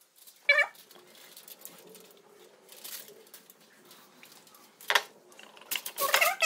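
Aluminium foil crinkling and rustling in short bursts near the end as hands fold it around a marinated fish, after a sharp rustle about five seconds in. A brief chirp-like call sounds about half a second in; otherwise the room is quiet.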